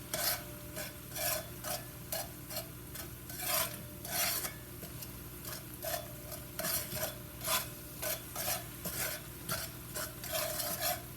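A spoon stirring and scraping around a cooking pot in short, uneven strokes about once a second, over a faint sizzle of oil, sofrito and seasonings cooking while a chicken bouillon cube melts into them.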